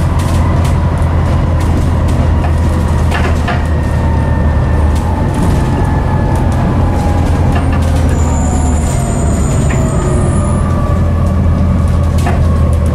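Volvo D7C diesel engine of a Volvo B7TL bus running under way, heard from inside the passenger saloon: a loud, deep, steady drone with a whine that slowly falls in pitch and scattered body rattles. A brief thin high squeal comes about eight seconds in.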